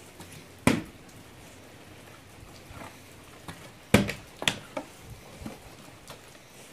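Plastic bottle landing on a wooden board in bottle flips: a sharp knock under a second in, then a louder knock about four seconds in, followed by a few smaller knocks as it bounces and tips.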